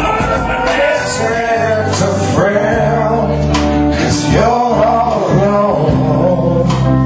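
Music with a man singing over guitar and a steady bass line.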